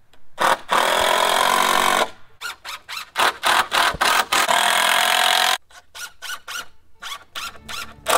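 Cordless power driver running screws into framing lumber: a steady run of about a second and a half, then a quick string of short trigger pulls that runs into a longer two-second run, then several short bursts near the end.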